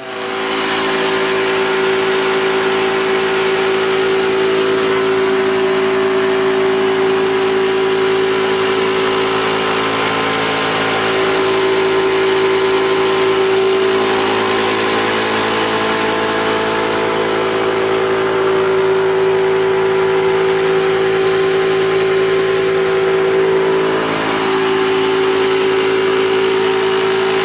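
A Yong Heng 4500 psi water-cooled high-pressure PCP air compressor runs steadily while filling an air tank. It makes a loud, even machine hum with a strong steady tone over a hiss.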